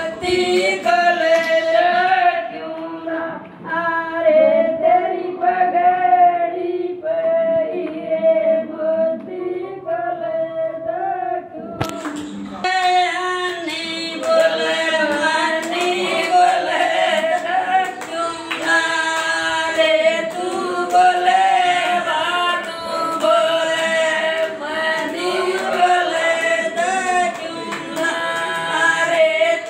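Group of women singing a sagai geet, a North Indian folk engagement song, in unison without instruments, with some hand clapping. A sharp click comes about twelve seconds in, and the singing is fuller after it.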